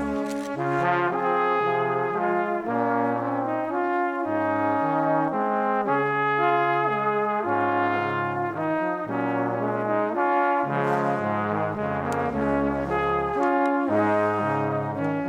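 Background music led by brass, with a melody over a moving bass line.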